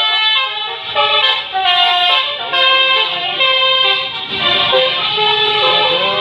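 Telolet Basuri multi-tone tour bus horn playing a tune of stepped notes, several pitches sounding at once. A bus engine's rumble rises under it in the second half.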